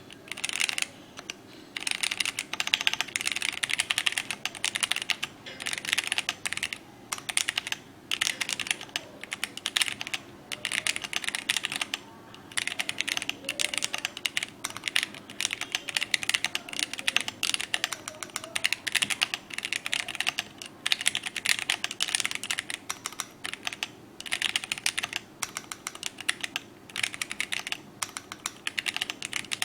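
Typing on a SIKAKEYB SK5 84-key gasket-mount mechanical keyboard: dense runs of key clacks in bursts of a few seconds, broken by short pauses.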